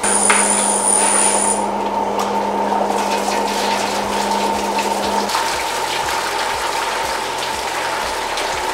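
Milk gushing steadily out of an aluminium churn into a cloth-covered vat, over the steady hum of dairy machinery. A low note in the hum stops about five seconds in.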